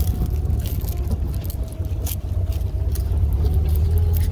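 A vehicle driving: a steady low rumble of engine and road with scattered knocks and rattles.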